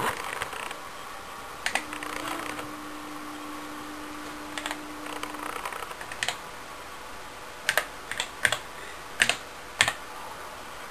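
Irregular key clicks on the TRS-80 Model 4 computer's keyboard, the densest run near the end. A steady hum from about two to five and a half seconds in is the floppy disk drive running.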